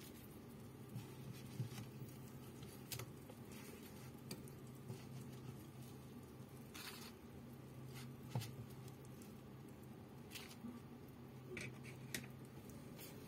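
Faint scattered clicks, taps and a brief rustle of kitchen tongs picking up and setting down pieces of fried tofu on a paper towel, over a low steady hum.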